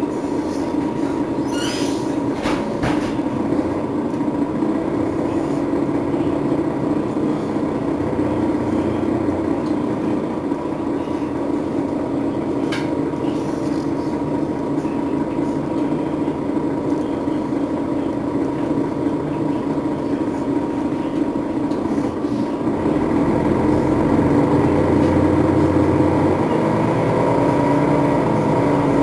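Setra S415NF city bus running, a steady engine and driveline noise with a thin constant whine, broken by a few sharp clicks early on and again about 13 s in. About 23 s in, the low engine note grows louder and deeper.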